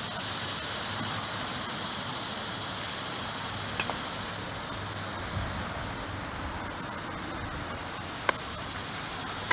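Two sharp knocks of a baseball being hit during batting practice, about four and a half seconds apart, the second louder, over a steady outdoor hiss.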